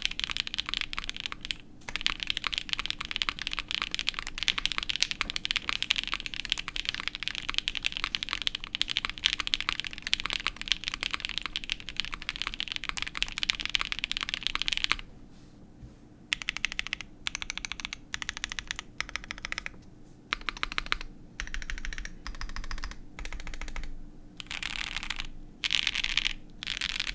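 Fast typing on a Polaris mechanical keyboard with lubed Kailh Kings frankenswitches (Waterking housings, Kailh long-pole stems) on an aluminium half plate with GMK keycaps, a deep clack on each keystroke. It is a steady run of keystrokes for about the first half, then shorter bursts of typing with brief pauses between them.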